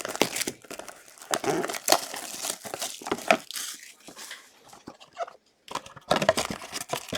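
Plastic wrap on a sealed box of trading cards crinkling and tearing as the box is unwrapped and opened, in a run of irregular rustles and rips with a short pause near the end.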